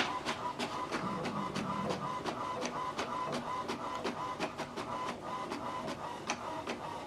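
HP DeskJet 3700 inkjet printer printing the back of a manually duplexed sheet: a steady whine with evenly spaced clicks from the print carriage and paper feed.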